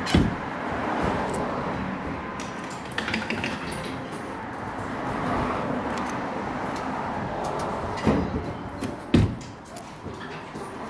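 Steady background din around a claw machine, with sharp knocks just after the start and again about eight and nine seconds in.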